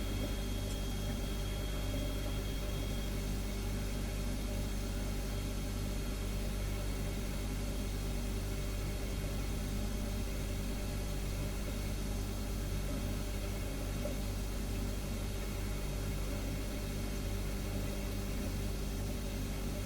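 Refrigerator humming steadily: a low, even mechanical hum made of several steady tones.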